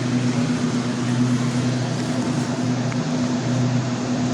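Steady mechanical hum, a low even drone with a constant hiss over it, unbroken.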